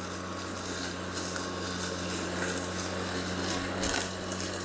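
Atlas 80V brushless cordless self-propelled lawn mower running under load through thick grass: a steady electric hum with a thin whine above it and the rustle of grass being cut, with scattered ticks and a brief thump about four seconds in.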